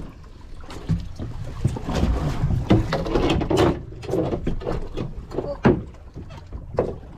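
Water slapping and sloshing against the hull of a small boat on open sea, with scattered sharp knocks and splashes.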